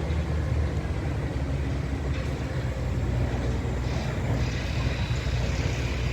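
A large engine running steadily with a low, even drone and no change in pace.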